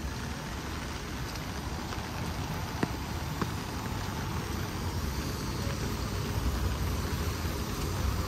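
Heavy rain falling steadily, with a few sharper drop taps about three seconds in. A low rumble builds up under it near the end.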